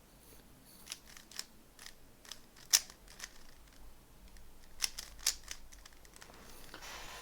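Rubik's Cube being turned by hand: scattered light plastic clicks and clacks as its layers rotate, with one sharper click a little under three seconds in.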